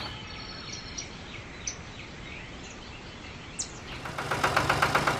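Several short bird chirps over quiet outdoor ambience. About four seconds in, a small motor starts running again with a rapid, even chatter.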